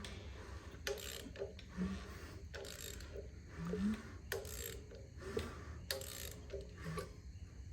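A hand ratchet turning a freshly built engine over at the crankshaft, in a series of clicking strokes with metal scraping and knocks between them. The engine is being rotated by hand after a valve adjustment to check for valve-to-piston contact.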